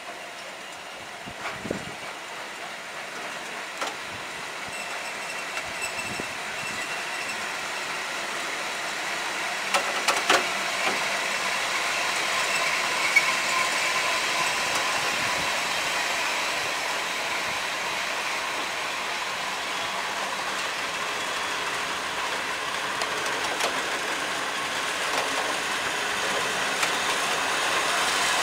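Freight train of open-top coal wagons rolling past: a steady rattle and rumble of the wagons with a faint wheel squeal, growing gradually louder, and a few sharp clicks of the wheels about a third of the way in.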